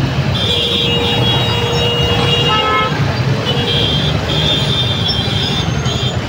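Jammed motorcycle and scooter traffic: engines running in a steady low rumble while horns honk, with two long high-pitched honks, one starting about half a second in and lasting some two seconds, the other starting about three and a half seconds in.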